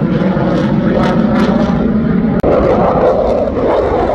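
Fighter jet flying overhead, its engine noise loud and continuous, turning harsher about two and a half seconds in.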